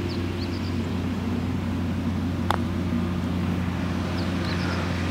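A single sharp click of a putter striking a golf ball about halfway through, over a steady low hum.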